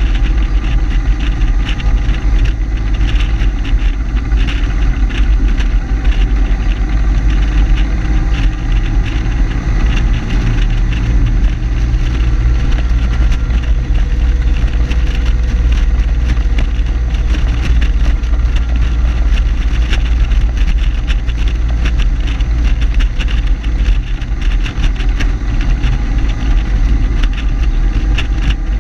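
Jeepster engine and road noise at steady cruising speed, picked up by a hood-mounted camera, with wind buffeting and crackling on the microphone.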